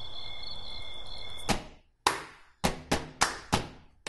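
Insects trilling steadily in a high, pulsing tone, cut off abruptly about a second and a half in. Then come sharp hand claps in an uneven rhythm, five of them, each with a short ringing tail.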